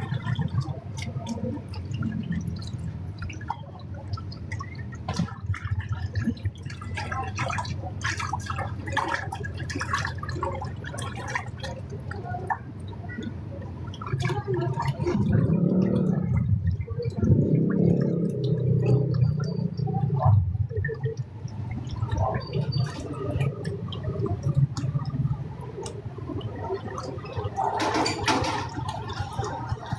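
Water splashing and gurgling, with scattered knocks and clatter; the gurgling grows louder about halfway through for several seconds.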